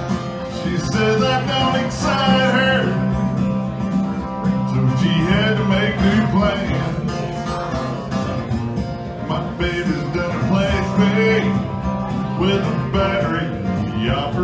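A man singing a country-style song while playing a steady acoustic guitar accompaniment, with sung lines coming and going over the guitar.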